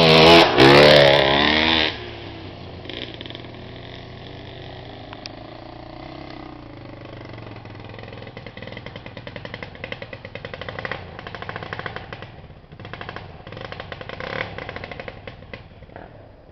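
Enduro motorcycle engine revving loudly as the bike passes close by, then dropping to a distant engine note that rises and falls with the throttle as the bike climbs away up the dirt trail.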